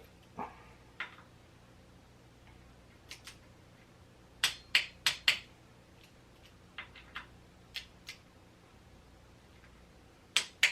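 Sharp clicks of hand tools working the handlebar clamp bolts, in irregular singles and pairs with a quick run of four about four and a half seconds in and a louder click near the end.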